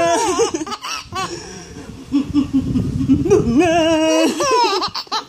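Three-month-old baby laughing in high-pitched bursts with short pauses between them.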